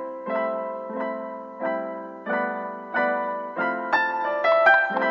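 Gentle background piano music: chords struck about every two-thirds of a second, each ringing and fading, with a quick run of higher notes near the end.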